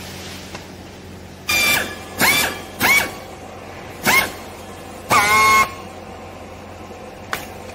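Handheld strapping tool's motor whirring in five short bursts, each rising in pitch and then holding briefly, while tensioning green plastic strap around a compressed cloth bale.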